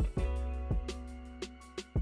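Background music with a steady beat, strong bass and sustained tones.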